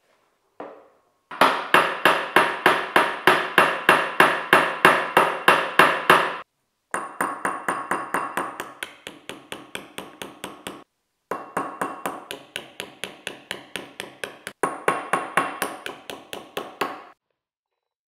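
Hammer tapping a nail against the taped base of an upturned ceramic bowl, chipping small drainage holes through it. The taps come about four a second in three runs, the first one the loudest, and each tap makes the bowl ring.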